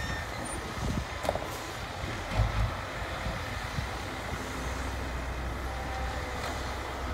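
Heavy diesel engines of a ten-wheel dump truck and a tracked excavator running with a steady low rumble while the dump bed is lowered after tipping soil. There is a short thump about two and a half seconds in.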